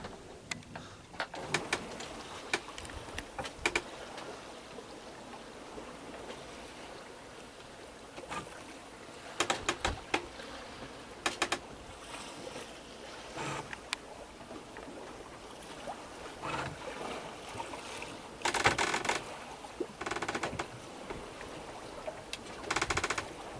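Water washing along a sailboat's hull as it sails slowly in light wind, with scattered clicks and short rattles from on board.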